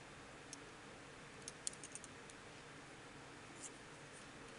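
Boye aluminum double-pointed knitting needles clicking lightly against each other as stitches are knitted. There are a few faint, irregular clicks, most of them bunched together a little before the middle, over a low hiss.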